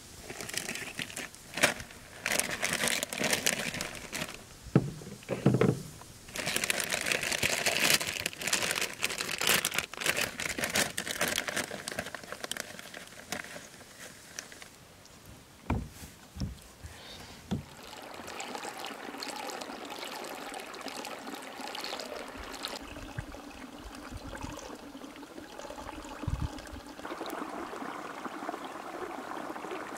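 Irregular rustling, crinkling and a few sharp knocks for roughly the first half. Then, from a little past halfway, a steady trickle and lapping of water in a hot spring pool.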